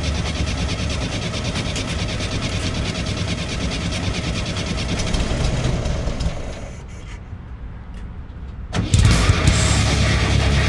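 The air-cooled flat-four engine of a 1967 VW Type 2 bus runs just after being started, then falls away about seven seconds in. Loud heavy-metal guitar music comes in near the end.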